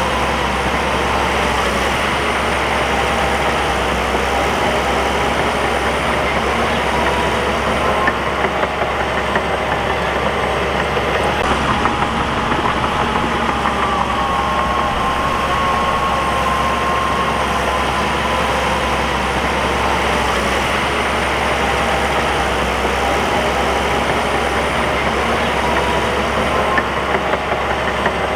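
Crawler bulldozer's diesel engine running steadily under work, with a wavering whine and a few short clanks.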